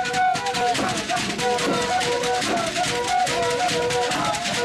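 Live Goli dance music: fast, dense hand drumming and percussion, with held pitched notes repeating over the rhythm.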